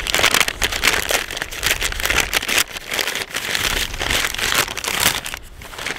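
Brown-paper takeaway bag crinkling and crackling as it is torn open and handled, a rapid, irregular run of paper crackles.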